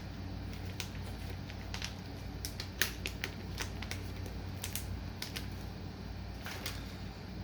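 Irregular light clicks and crinkles of a plastic soft-bait package being handled, the sharpest a little under three seconds in, over a steady low electrical hum.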